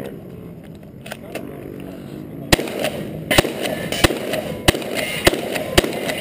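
A shotgun firing a rapid string of six shots, about two-thirds of a second apart, starting about two and a half seconds in.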